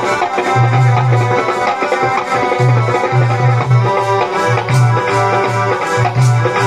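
Harmonium and tabla playing Sikh kirtan music: held reed-organ notes over a steady tabla rhythm with deep, repeated bass-drum strokes.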